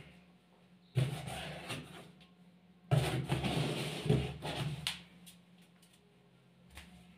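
Handling noise: two bursts of rubbing and knocking as hands move about the paint-spray machine, one about a second in and a longer one from about three to five seconds in. The sprayer itself is not running.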